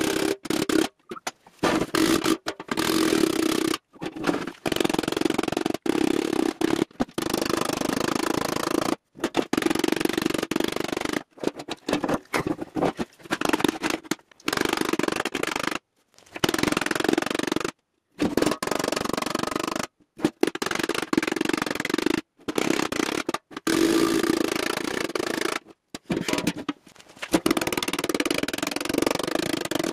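Hammer striking the cut edges of an opening in a sheet-steel ammo can, the can ringing with a steady low tone. It comes in many short runs broken by sudden silences.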